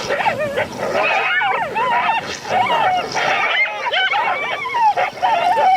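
A dog yelping and whining in rapid, wavering high calls, one after another.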